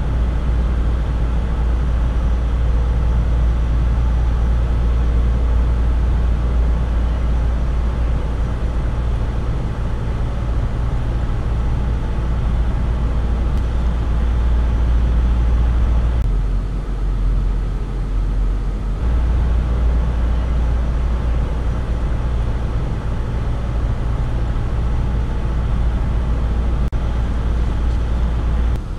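Boat engine running steadily underway, a deep continuous drone. The hum changes briefly a little past halfway, then settles again.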